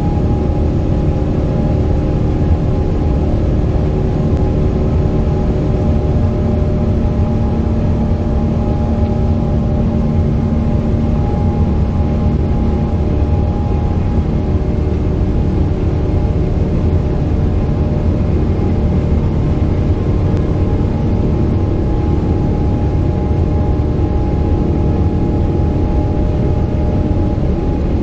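Steady rumble of a moving vehicle, with a few steady humming tones over it.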